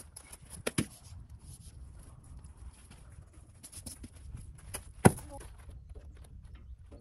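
Footsteps crunching on gravel and knocks from handling a metal cart frame and its seat as the seat is taken off, with a sharp knock about a second in and a louder one, with a brief ring, about five seconds in.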